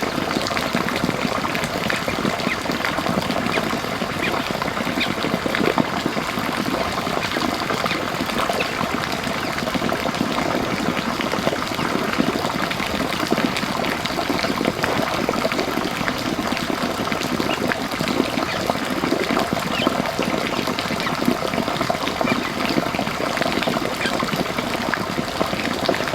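Steady running water, gushing and trickling with many small splashes.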